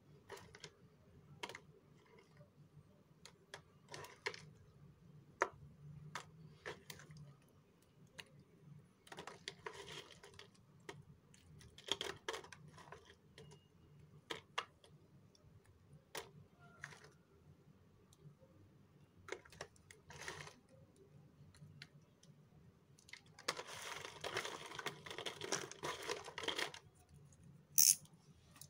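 Thin, brittle flakes being snapped and crushed by hand in a cardboard box: scattered sharp cracks and clicks, a longer stretch of dense crunching and crackling about 24 seconds in, and a sharp loud crack near the end.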